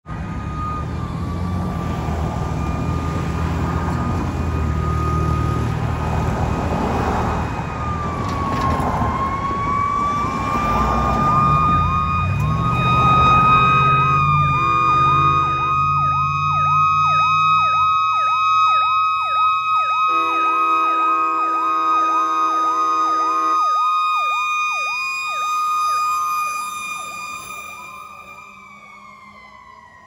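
Fire rescue truck responding with sirens: a steady siren tone that falls in pitch near the end, over a fast-cycling yelp siren. Two chords from the truck's train horns sound, a short one about 14 seconds in and a longer one about 20 seconds in. A heavy vehicle rumble runs under the first part.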